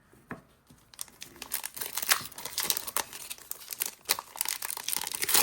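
Foil wrapper of a Pokémon TCG booster pack crinkling as it is handled and torn open, a dense crackle that starts about a second in.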